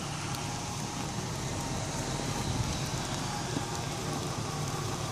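Jeep Wrangler YJ crawling up a rocky trail, its engine running at low revs with a steady low rumble, under an even crackling noise and a few faint ticks.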